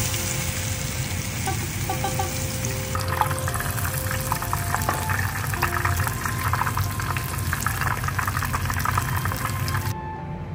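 Conger eel tempura deep-frying in oil at 190 °C: a dense, steady crackle and sizzle of bubbling batter that cuts off near the end.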